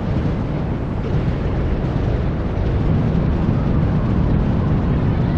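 Fireworks going off in a dense barrage, heard as a steady low rumble with no single bang standing out.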